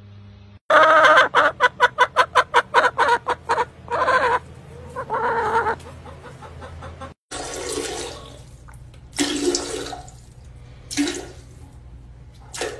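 Chicken hen clucking in a fast run of about four or five clucks a second, then giving two longer, drawn-out calls. After a break, a few short, quieter sounds follow.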